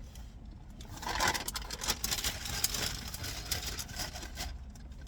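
Paper fast-food packaging rustling and crinkling as the fries are handled, over the low, steady hum of a car engine idling.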